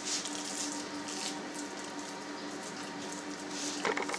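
Wet hands squeezing and scooping minced beef in a glass bowl: soft, wet squelching. Near the end a quick run of pats starts as the lump is shaped between the palms.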